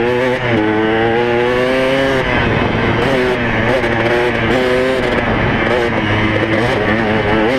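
KTM 200 XC-W's single-cylinder two-stroke engine running under way on a dirt trail, its pitch held steady for a couple of seconds, then rising and falling with the throttle, with a quick rev near the end.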